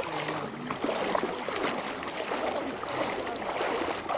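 Legs wading through shin-deep floodwater: irregular splashing and sloshing with each step over the rush of moving water.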